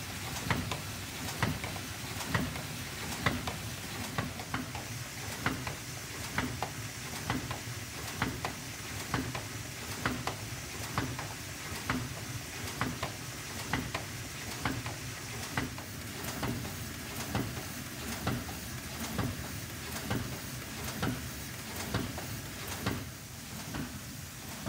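Ecosystem Quick 76 thermal film laminator running steadily, with a sharp click repeating roughly once a second as sheets feed through it.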